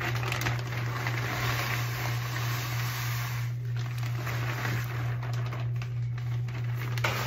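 Pelleted small-animal bedding pouring from a large bag onto a growing pile: a continuous rushing rattle of pellets that eases briefly about halfway through, then carries on.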